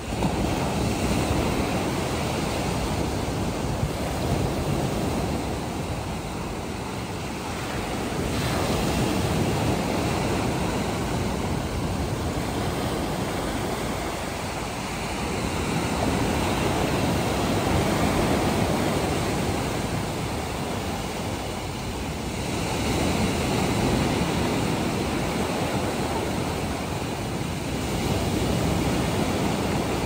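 Sea waves breaking on the beach and washing up the shore: a continuous rush of surf that swells and eases about every six to seven seconds.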